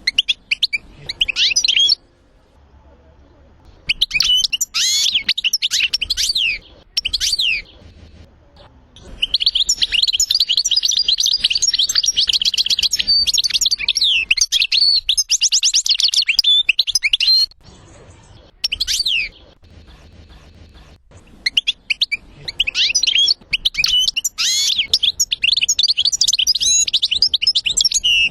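European goldfinch singing: bursts of rapid, high twittering and trills, broken by short pauses, with one long unbroken run of song in the middle.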